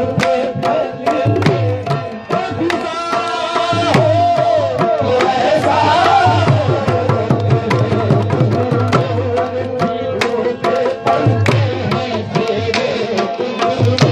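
Qawwali music: a harmonium holding steady chords under tabla strokes, with a singer's voice gliding up and down in the middle.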